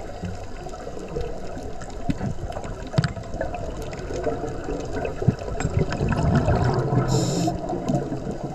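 Underwater recording through a GoPro housing: a scuba diver's exhaled bubbles gurgling and rushing, with scattered clicks and a short hiss near the end.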